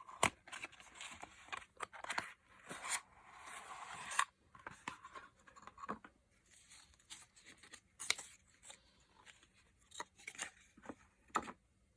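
A small cosmetics box and highlighter compact being handled and opened. Rustling and scraping fill the first few seconds, followed by scattered sharp clicks and taps.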